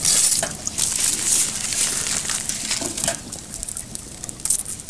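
Plastic packaging crinkling and rustling as it is handled, in short bursts: the loudest at the start, another about a second in, and one near the end.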